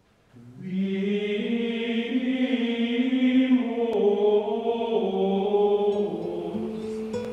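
Soundtrack music of chant-like voices holding long, slowly changing notes. It fades in over the first second.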